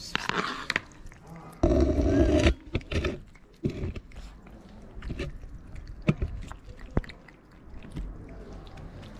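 A cat and kitten eating wet cat food from a plate: many small wet clicks and smacks of chewing and licking. About two seconds in there is a loud voice-like sound lasting under a second.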